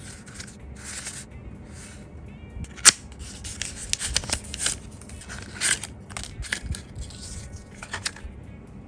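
A pack of finger gloves being opened by hand: irregular crinkling and rustling of the packaging with scattered clicks, and one sharp snap about three seconds in. Quiet background music underneath.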